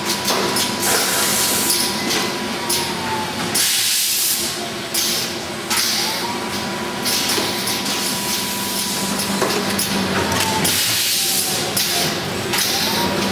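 T-shirt folding and bagging machine running: bursts of compressed-air hiss from its pneumatic actuators, a steady whine that sags in pitch and stops twice before starting again, and mechanical clicks.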